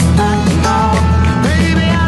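Background music: a song with a gliding melody line over a steady bass.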